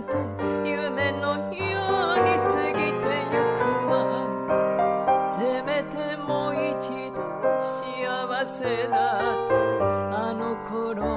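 A Japanese song sung with vibrato over piano accompaniment.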